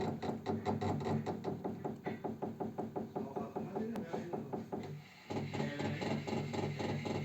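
Radiator ticking rapidly and evenly, about five or six ticks a second, over a steady hum. The sound drops away briefly about five seconds in, then starts again.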